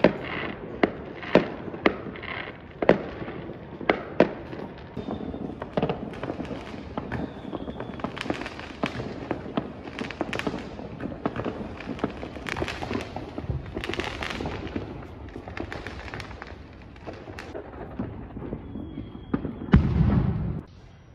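Many fireworks going off around the area: a string of sharp bangs over continuous crackling from many bursts, thickest in the first few seconds. A louder, deep rumble of bursts comes near the end, then the sound cuts off suddenly.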